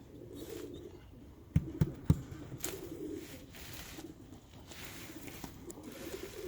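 Birmingham Roller pigeons cooing in the loft, a low warbling coo that keeps going, with three sharp knocks in quick succession about a second and a half in.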